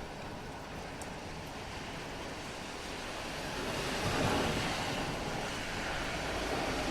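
Steady rain hiss with a car passing on the wet road, its tyre swish swelling up about four seconds in and fading, and a second swell near the end.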